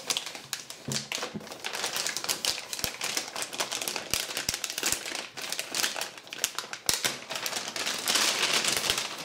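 Thin plastic bag crinkling and rustling as hands handle it and pull it open around a laptop.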